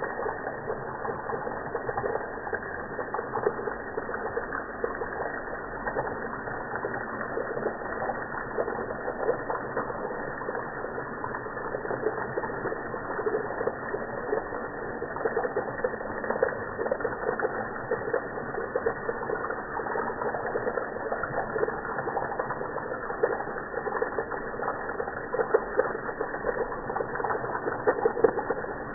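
Running tap water played back slowed down, so its splashing is pitched down into a steady, dense, low wash with nothing in the upper range.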